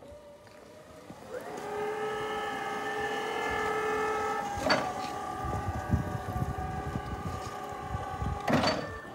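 Yale ERP18ATF battery-electric forklift's AC drive motor whining as the truck moves off: the whine comes in about a second in, rises briefly and then holds steady, shifting pitch slightly partway through. Two sharp knocks, one about halfway through and one near the end.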